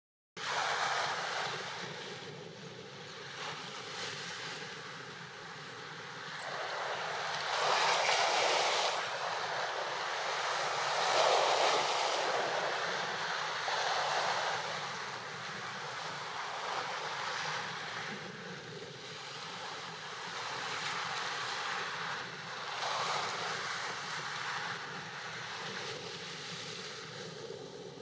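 Sea waves washing and breaking over a low rock outcrop, a continuous rush of surf that swells into louder surges every few seconds.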